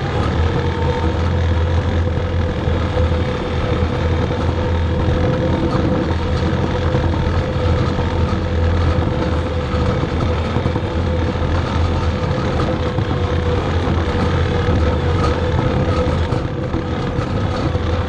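Skid steer engine running steadily under load while carrying a loaded scraper pan, a constant low hum with a steady whine above it.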